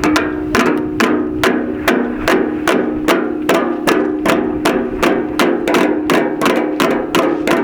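Rapid, evenly paced wooden knocks, foley sound effects played in time, over music with steady held notes.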